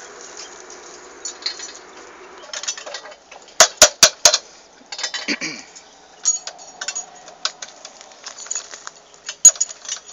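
Metal clinking and tapping as tools and fittings are worked on the steel frame of a ground-mounted disconnect switch assembly. Four sharp metallic strikes come in quick succession a few seconds in, with another single strike near the end.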